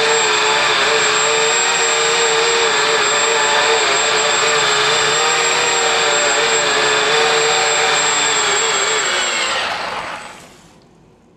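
Micro RC helicopter's electric motor and five-blade rotor running in a hover: a steady hum that wavers slightly in pitch, with a thin high whine over it. About nine and a half seconds in, the power is cut after touchdown and the sound dies away over a second or so as the rotor spins down.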